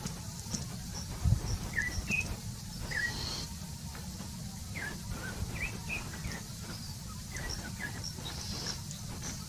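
Wild birds giving short, scattered call notes and faint high chirps over a low steady background rumble, with a single thump about a second in.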